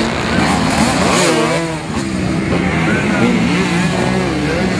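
Motocross motorcycle engines running, with people's voices mixed in.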